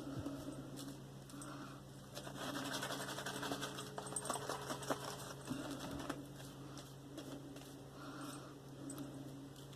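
Vintage Gillette Fat Boy safety razor scraping through lathered facial stubble in short strokes, a fine crackling of hairs being cut, busiest in the middle.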